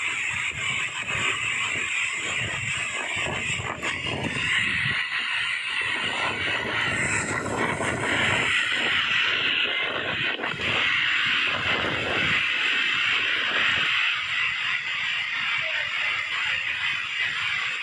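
Heavy rain pouring down in a loud, steady hiss, with an uneven low rumble underneath that comes and goes.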